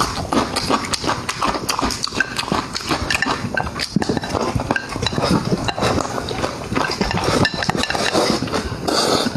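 Close-miked chewing and mouth sounds of a person eating, with a steady run of irregular wet clicks and smacks.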